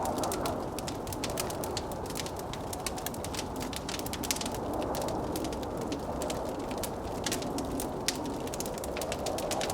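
Log fire in a fireplace crackling with many quick, irregular pops, over a steady rushing of blizzard wind.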